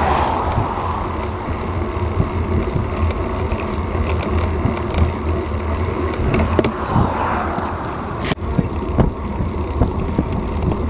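Wind and road noise on a bicycle-mounted action camera while riding, with a steady low rumble. A car passes close by at the start, a second similar swell comes about seven seconds in, and a sharp click sounds a little past eight seconds.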